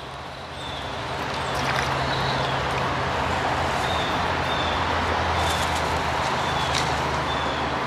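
Steady rushing of water from a creek tailwater below a dam, with a few faint clicks.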